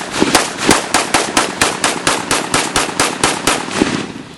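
Rapid gunfire from a semi-automatic firearm, shots at an even pace of about five a second, ending near the end.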